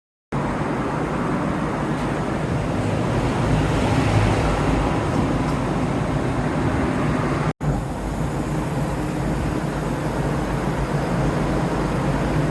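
Toshiba Super Module Multi MMY-MAP4005H building air-conditioner outdoor unit running: a steady rush of fan air over a low, even hum. The sound breaks off for an instant a little past halfway.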